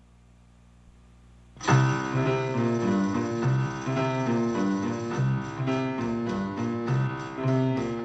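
Television score music. A faint fading tail gives way, about a second and a half in, to a sudden loud passage of quick, repeating notes over a pulsing bass line.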